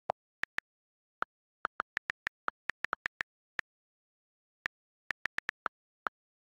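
iPhone on-screen keyboard clicks as a text message is typed: about twenty short ticks in an uneven typing rhythm, with a pause of about a second midway.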